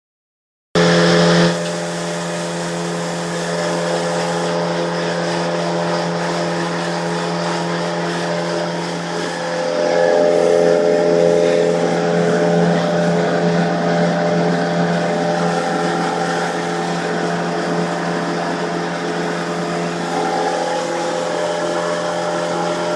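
Suzuki DF 90ATL four-stroke outboard motor running steadily under way, its engine note over a constant rushing noise. The sound starts with a brief louder burst about a second in, and the engine note rises slightly about ten seconds in.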